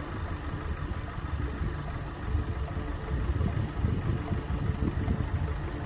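An engine idling with a steady low rumble.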